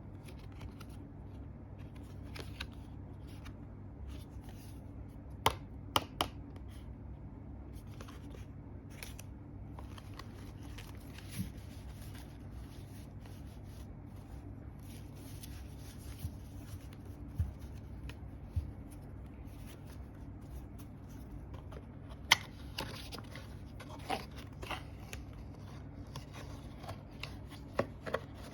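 A tarot deck and its box being handled: scattered sharp clicks and taps of card stock, busier near the end, over a steady low hum.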